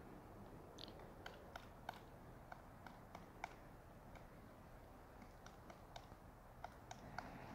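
A woodpecker pecking at tree bark while foraging for insects: faint, irregular light taps, a few a second.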